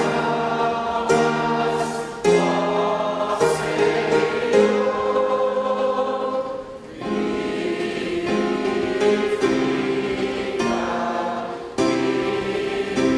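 A church congregation singing a hymn together to piano accompaniment, in sustained phrases, with a brief break between lines about seven seconds in.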